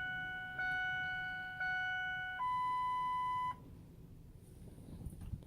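Truck's warning chime: three identical steady tones in a row, then one higher tone that stops about three and a half seconds in, followed by quiet with a few faint clicks before the engine is cranked.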